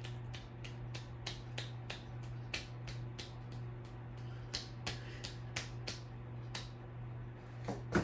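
Hunter Stratford ceiling fan running, its motor giving a steady low hum, with a sharp clicking about three times a second that pauses briefly twice.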